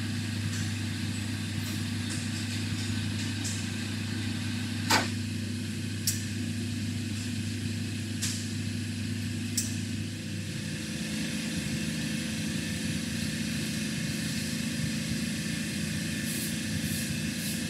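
Large shop machine turning a giant diesel engine crankshaft, running with a steady mechanical hum. A deeper drone drops out about ten seconds in, and a few sharp ticks sound over the hum, the loudest about five seconds in.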